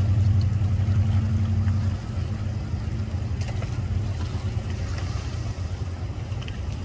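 An engine running steadily at idle, a low hum that drops in level about two seconds in and carries on more quietly.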